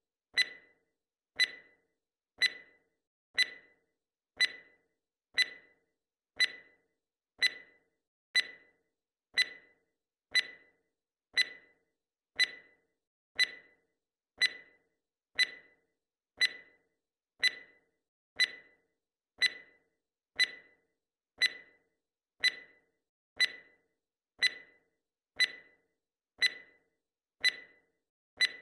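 Ticking sound effect of an on-screen seconds timer: one short, sharp clock tick every second, each dying away quickly.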